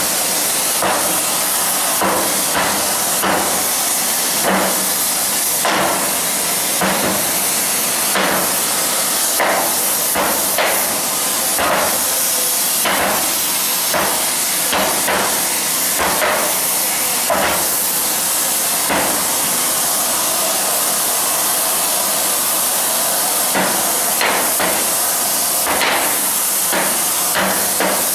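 Sledgehammer blows on a hot locomotive firebox tube plate being flanged by hand over a former, struck irregularly about once a second with a pause of a few seconds past the middle. Under them runs the steady hiss of gas flames heating the plate.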